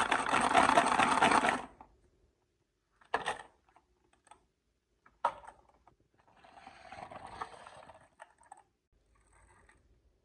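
Marbles rolling and clacking down a HABA wooden marble run: a loud clattering rattle for the first second and a half, then a few sharp single clicks and a softer rolling run later on.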